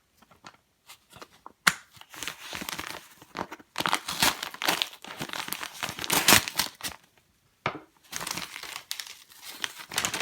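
Packaging being torn open by hand: irregular crinkling, rustling and tearing, with a sharp snap about a second and a half in.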